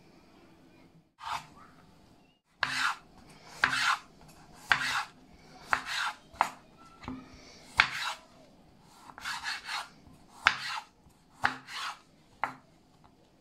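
A knife slicing a lemon into wedges on a wooden cutting board: a series of short cutting strokes, roughly one a second, starting about a second in, some ending in a sharp tap of the blade on the board.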